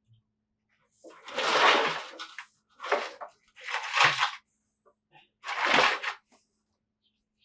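Four short bursts of rustling, clattering handling noise with dead silence between them. The loudest come about a second and a half in and about four seconds in.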